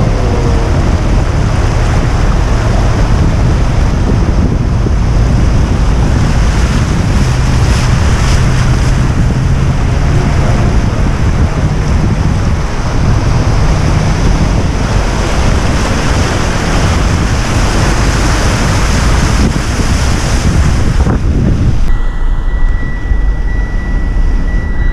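Vehicle driving through floodwater: a loud, continuous rush of water spray with the engine humming underneath. About 22 seconds in the rushing drops away and a steady high tone sounds for about three seconds.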